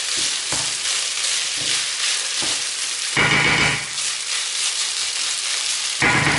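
Rice, chorizo and vegetables sizzling in a non-stick pan over high heat while a wooden spoon stirs and scrapes them. There are a few light knocks early in the stirring, and two louder scraping strokes about three seconds in and near the end.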